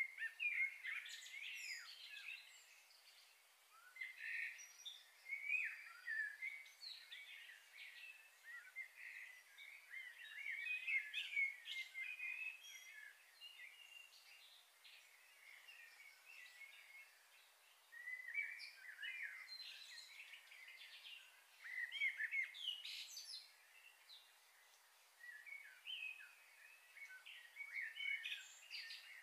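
Birds chirping and singing in short irregular bursts of twittering calls.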